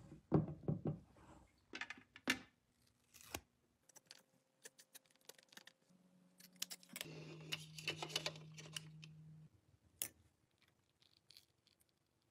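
Close-up handling noises of gloved hands working small toy parts: a cluster of low sloshes and knocks in the first second, then scattered clicks and rustles. A steady low hum with a hiss runs for about two and a half seconds past the middle.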